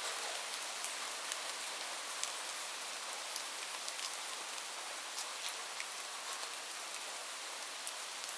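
Light rain falling steadily: an even hiss with scattered close drops ticking on a surface.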